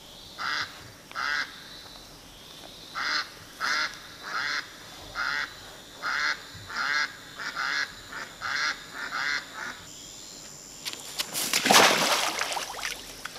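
A series of about a dozen short honks, each about a third of a second and spaced well under a second apart, stopping about ten seconds in. Near the end a loud splash as a bamboo fish-cover basket is plunged down into shallow muddy water.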